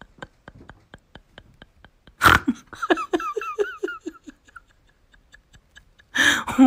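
A sudden loud rush of noise about two seconds in, then a person laughing in quick short bursts, about five a second, for around a second and a half. Faint regular ticking can be heard before the laugh, and a loud new sound begins near the end.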